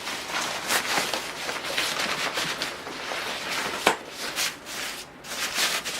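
Fabric rain cover of a tackle bag rustling and crinkling as it is pulled out and fitted over the bag, with irregular scrapes and one sharp click about four seconds in.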